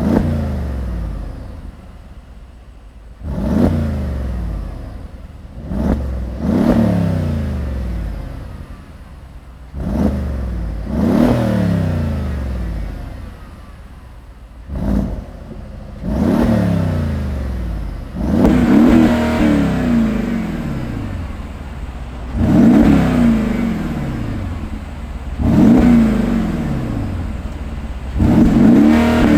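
2018 Mercedes-AMG G63's 5.5-litre V8 revved at standstill through its side-exit exhaust: about a dozen short throttle blips, each rising sharply in pitch and falling back to idle, the later ones held a little longer.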